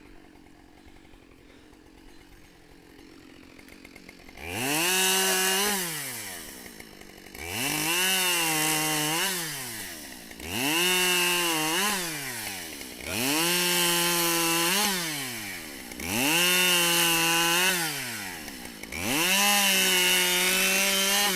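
Husqvarna 572XP two-stroke chainsaw, faint for the first few seconds, then opened to full throttle and let back down six times in quick succession. Each burst rises quickly in pitch, holds steady for a second or two, then falls away.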